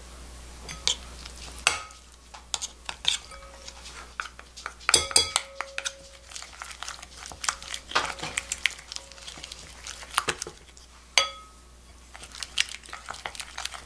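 Metal spoons clinking against a glass bowl, then a wooden spoon stirring and scraping a thick, wet paste of red pepper flakes around the glass, with scattered taps and clicks. Two louder knocks come about five seconds in and about eleven seconds in, each leaving a short ring.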